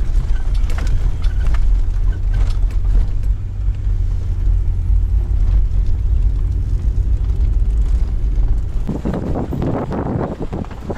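Car driving over rough, ridged lake ice, heard from inside the cabin: a steady low engine and road rumble with knocks as the car jolts. About nine seconds in, a louder irregular clatter sets in.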